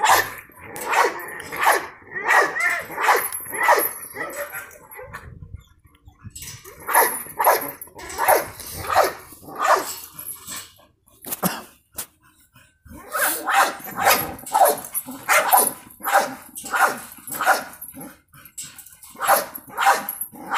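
A dog barking over and over, about two barks a second, in runs broken by a few short pauses.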